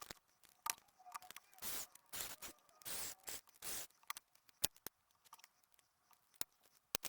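Small clicks and scrapes as a Samsung D600 slider phone's plastic casing is worked apart by hand, with three longer scraping sounds in the first half and a few sharp ticks later.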